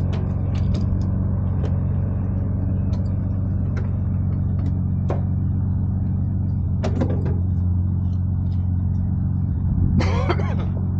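A vehicle running with a steady low drone, with scattered light clicks and a short louder sound near the end.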